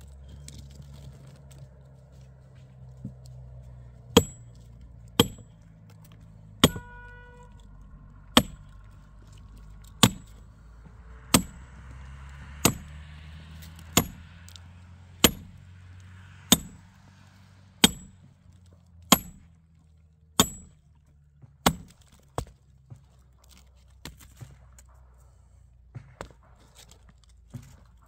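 Axe chopping a dry, dead tree stump: a steady run of about fifteen sharp blows, roughly one every second and a quarter, one of them ringing briefly. Near the end the blows give way to lighter, scattered knocks.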